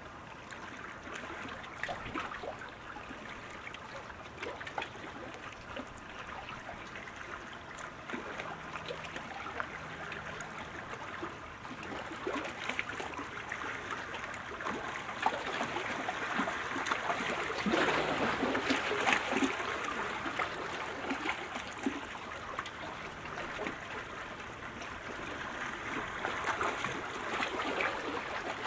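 Water splashing and lapping around canoes and boats, a steady crackling noise that swells louder about two-thirds of the way through and again near the end.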